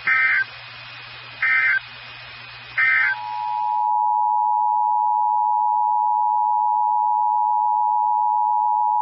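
NOAA Weather Radio SAME data bursts: three short electronic screeches about 1.4 s apart over radio hiss, the end-of-message code that closes a weekly test. About 3 s in, a steady single-pitch 1050 Hz warning alarm tone begins and holds.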